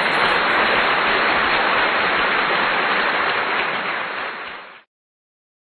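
A loud, steady rain-like hiss, a noise sound effect over the channel's end logo, that cuts off suddenly near the end.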